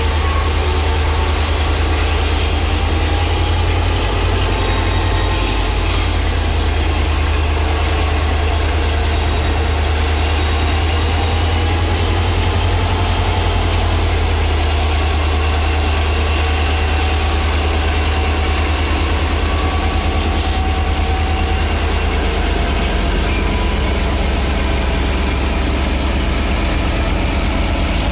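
EMD diesel locomotives, a Western Pacific GP20 leading an FP9A, working under load with a steady deep engine drone as the train passes. Faint high wheel squeal from the rails comes and goes in the first half.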